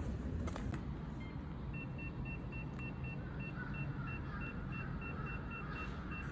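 A rapid, even series of short high electronic beeps, about five a second, starting a couple of seconds in. Behind it, from about halfway, a fainter wavering call that is captioned as a crow's cawing.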